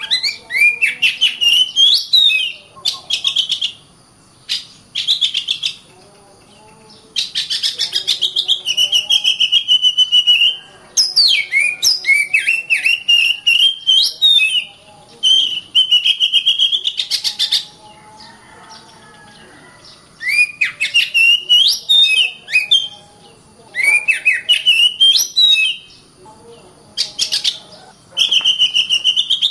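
Oriental magpie-robin (kacer) singing: phrases of rapid, varied whistled notes, broken by a few short pauses.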